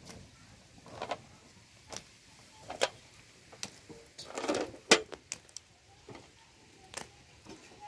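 Wood fire crackling in a mud chulha with crab claws roasting in the embers: irregular pops and a few sharp cracks, the loudest about three and five seconds in.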